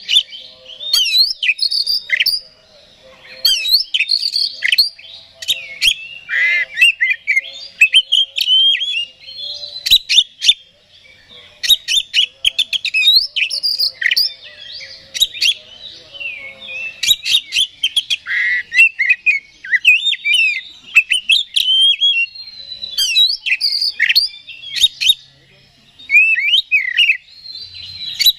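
Male oriental magpie-robin (kacer) singing a fast, varied song of whistles, chirps and rising and falling notes, with a few brief pauses.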